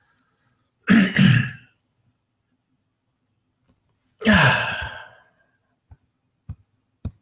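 A man sighing twice in frustration, the second a long sigh falling in pitch, then a few soft taps.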